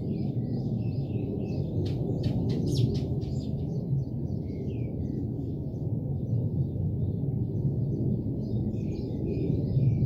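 Eurasian tree sparrows chirping in a running string of short notes, with a few sharp clicks two to three seconds in, over a steady low rumble that is louder than the birds.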